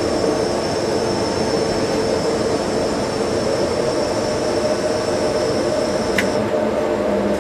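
Steady rushing roar of the gas-fired burners in a Dräger fire training simulator, heard from its control room. A thin high whistle over the roar cuts off with a click about six seconds in.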